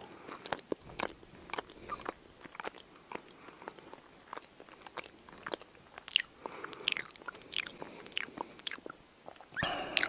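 A person biting and chewing a bread roll: a run of short crackly mouth clicks and crunches, more frequent in the second half.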